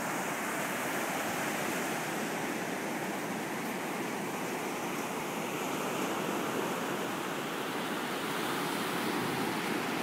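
Ocean surf breaking on a beach: a steady, even wash of waves.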